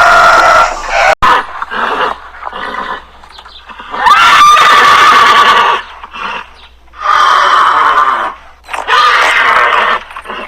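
Loud calls of a farm animal: one call cut off abruptly about a second in, then three long pitched cries, each a second or more long, with quieter breathing-like sounds between them.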